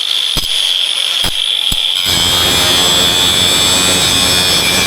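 Angle grinder running with a steady high whine. A few sharp clicks come in the first two seconds, then from about two seconds in the disc grinds against the concrete floor, cutting off protruding carpet nails flush.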